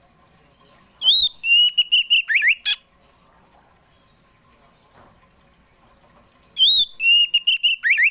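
Oriental magpie-robin (kacer poci) singing loud whistled song phrases, the same phrase twice about five seconds apart. Each phrase is a rising-then-falling whistle, a quick run of repeated notes, and a couple of down-slurred notes ending in a sharp note.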